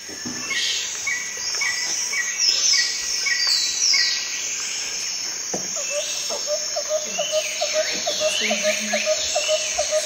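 Birdsong and insect chirping: several birds call with quick falling whistles and repeated short chirps. About six seconds in they are joined by a regular run of lower chirps, about three a second.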